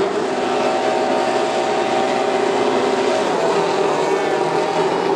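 Pack of Formula 1 cars, 1.6-litre V6 turbo-hybrids, running past at high revs: a steady high engine whine that fades after about three seconds as the field moves on.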